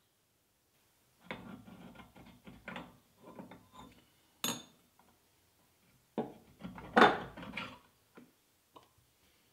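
Metal lathe parts and hand tools clinking and rattling as the Myford ML7 lathe is partly taken apart. There are two bursts of clatter, a single sharp knock between them, and the loudest clatter about seven seconds in.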